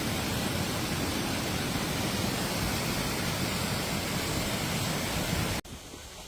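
Steady, even rushing noise that cuts off suddenly near the end, leaving a much quieter background.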